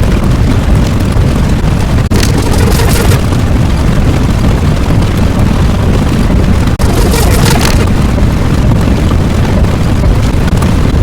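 Loud, continuous low rumbling noise, with short breaks about two and seven seconds in.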